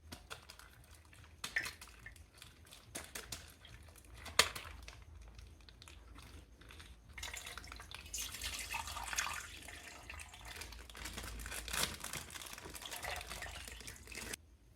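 Handling of a water-filled plastic bag: crinkling and small clicks, then water trickling and dripping from about seven seconds in.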